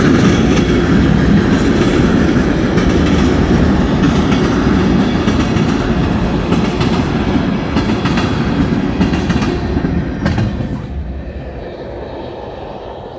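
Freight train of ethanol tank cars rolling past, steady wheel-on-rail noise with scattered clicks of wheels over rail joints, fading near the end as the last cars go by.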